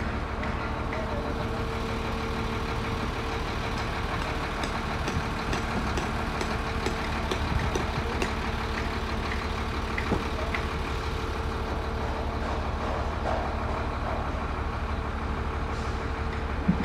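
Concrete mixer truck's diesel engine running steadily at idle, a low rumble with a steady hum. A few faint knocks sound over it.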